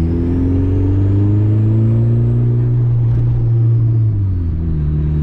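Turbocharged Honda D16 single-cam four-cylinder of a Civic wagon running under load while driving, its pitch climbing slowly, levelling off, then easing down, with a faint high whine following the same curve. A little after four seconds the engine note drops.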